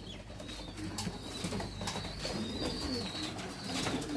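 Racing homer pigeons cooing in the loft, several low rolling coos overlapping one another, with a few sharp clicks among them.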